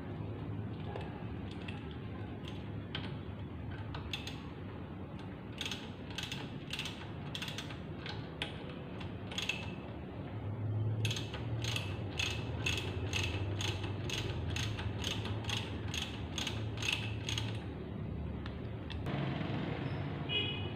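Hand ratchet wrench clicking on a motorcycle front-shock mounting bolt. A few scattered clicks come first, then about halfway through a quick, even run of two to three clicks a second for several seconds.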